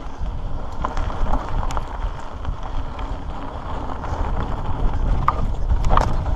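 Mountain bike rolling over a rocky dirt singletrack: tyres crunching over dirt and stones and the bike rattling with scattered clicks, under steady wind noise on the microphone.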